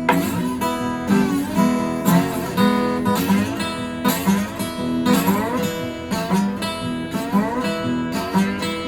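Johnson Dreadnought acoustic guitar in open E tuning, chords strummed about once a second, with some notes sliding up in pitch.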